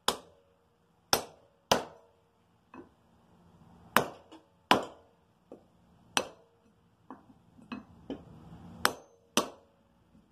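A hammer striking a long metal drift set in the eye of a sledgehammer head clamped in a vise: about a dozen sharp, ringing metal-on-metal blows at an uneven pace, some heavy and some light. The blows are knocking the drilled-out remains of the old wooden handle and its wedge out of the head.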